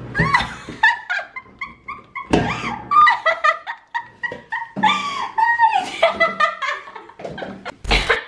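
A string of high whining whimpers and short yelps, rising and falling in pitch, then a single cough just before the end.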